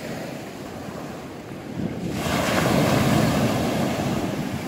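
Sea waves breaking on the beach: one wave surges in about two seconds in, swells, then washes back down. Wind buffets the microphone.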